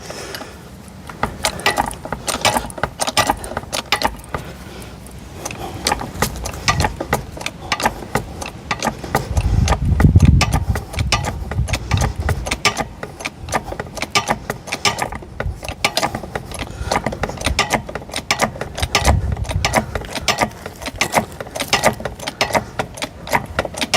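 Metal clicking and clinking as a hydraulic car ramp is worked with its bottle jack, many sharp clicks throughout. A heavier low thump about ten seconds in and a smaller one near nineteen seconds.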